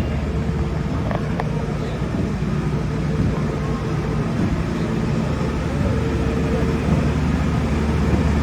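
Engine of road-paving machinery running steadily, a low even hum with a fainter higher tone that comes and goes.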